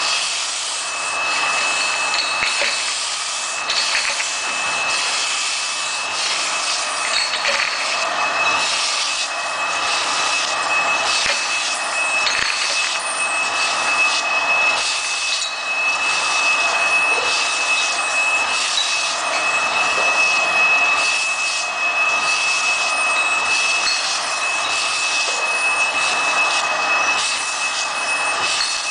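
Automatic bottle labeling machine running, its conveyor carrying glass bottles through the labeling station. A steady mechanical noise with a high-pitched whine, and irregular clicks and knocks from the bottles and mechanism.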